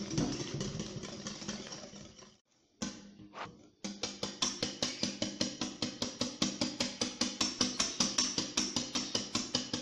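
Hand wire whisk beating eggs and sugar in a glass bowl, the wires clicking against the glass in a fast, even rhythm of about six strokes a second. The whisking breaks off briefly a little over two seconds in, then picks up again.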